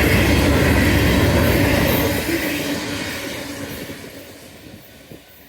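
BNSF Herzog work train's cars running past on the rails at speed, a steady rumble with rail noise that fades away from about two seconds in as the train moves off.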